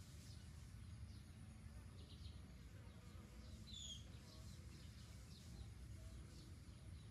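Faint outdoor ambience: a low steady rumble with scattered faint bird chirps, one clearer chirp a little before the middle.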